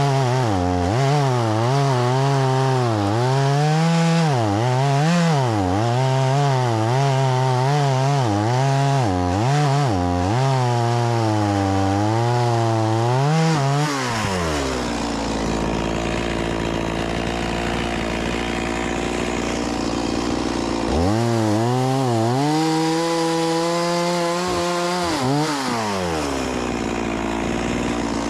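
Stihl MS 180 C-BE two-stroke chainsaw cutting firewood logs, its engine speed rising and falling as the chain works through the wood. About halfway through it drops to idle, revs up again for a few seconds, then falls back to idle near the end.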